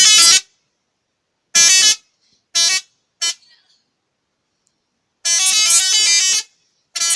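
Truck's telolet horn, a multi-tone musical horn, sounding in loud blasts of stepping notes: one blast at the start, three short blasts over the next few seconds, then a longer melodic run about five seconds in and another starting just before the end.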